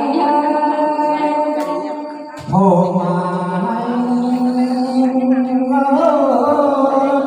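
Mường folk singing (hát Mường) in long held notes: a woman's voice sustains a line and fades, then about two and a half seconds in a man's lower voice takes up the song.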